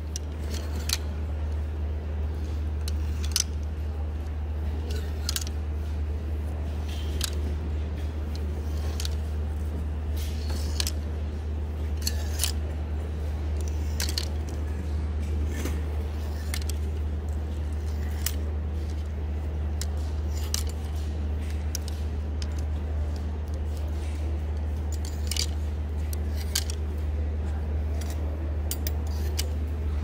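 Clear plastic clothes hangers being pushed along a clothing rack, clicking and clacking against each other in irregular bursts, over a steady low hum.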